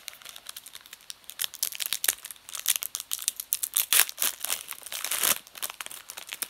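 Trading card wax pack wrapper crinkling and tearing as it is opened by hand. The crackles grow busier about a second and a half in, with the loudest near four and five seconds in.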